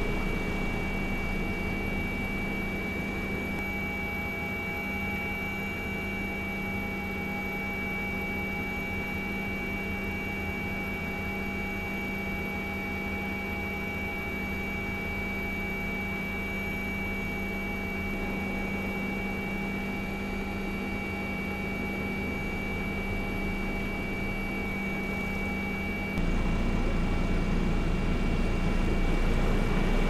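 Steady helicopter noise heard from aboard: a turbine whine over a constant drone, which grows louder and fuller a few seconds before the end.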